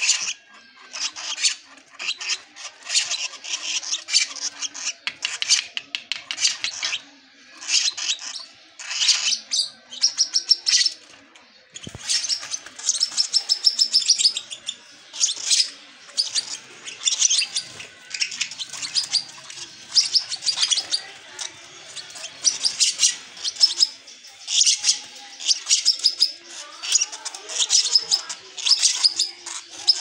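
Lovebird chicks begging while being hand-fed formula from a syringe: short bursts of rapid, high chirps, repeated over and over with brief pauses.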